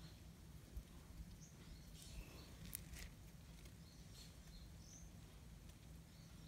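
Near silence: faint outdoor background with a low steady rumble, a few faint high bird chirps and a few soft clicks.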